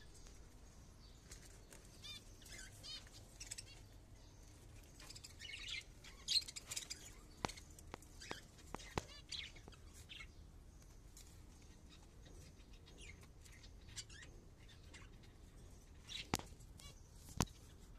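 Cockatiels chirping and trilling softly in short calls, with bursts of rustling like fluttering wings. Several sharp clicks or taps stand out, the loudest near the end.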